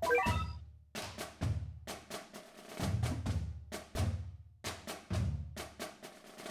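Percussive music: repeated drum hits over a deep bass, with a quick run of bright, chime-like notes at the very start.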